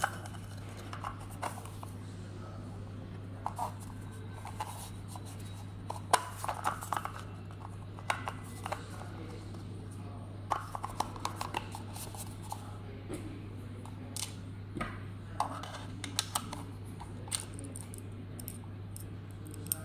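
Plastic dome camera housing being handled and fitted together by hand: scattered short clicks and scrapes of plastic parts, over a steady low hum.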